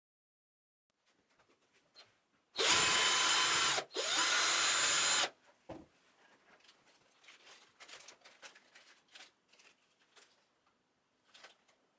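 A small electric power tool's motor runs in two short bursts of about a second each, starting and stopping abruptly. Then a knock and faint rustling and handling of the plastic bag.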